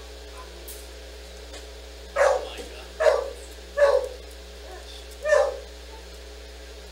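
A dog barking: four sharp barks, roughly a second apart, with a softer one between the last two, over a steady low electrical hum.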